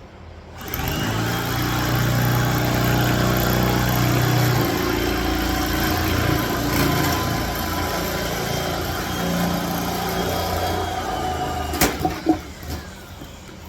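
A motor runs steadily for about eleven seconds after starting abruptly, then stops, followed by a few sharp knocks.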